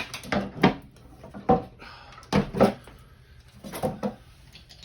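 Irregular knocks and clunks, about eight in under five seconds, as a seized sewage pump and its fittings are handled and worked loose in the pit.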